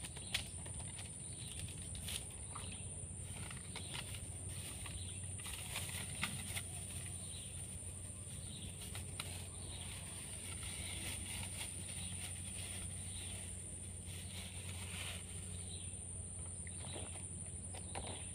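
Outdoor forest ambience: a steady high-pitched insect drone, with scattered faint clicks, rustles and short chirps over a low background hiss.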